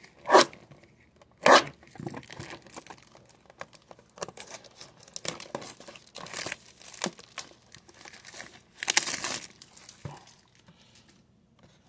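Trading-card box packaging being torn open by hand, with wrappers crinkling. There are two sharp rips in the first second and a half, then scattered crinkling and rustling, and a longer crinkle about nine seconds in.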